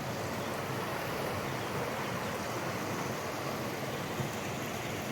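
River rushing steadily over rocks in the gorge bottom, a continuous even wash of water noise.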